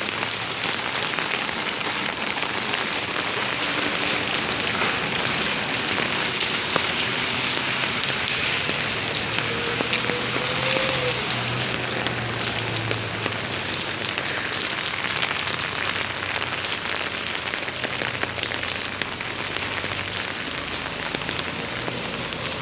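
Pouring rain falling steadily, an even hiss of drops on hard surfaces. A faint low hum swells and fades near the middle.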